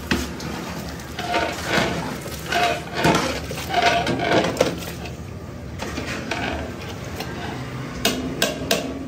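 Metal utensils clattering and scraping against pots and plates, with a few sharp clinks near the end.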